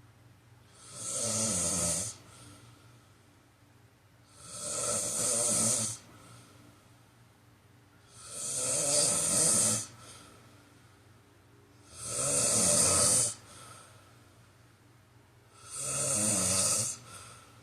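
A person snoring steadily: five rough snores, each about a second and a half long, one roughly every four seconds, with quiet breathing between them.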